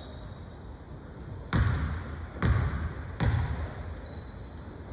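A basketball bounced on a gym floor: three bounces, each under a second apart, with a few brief high squeaks between them.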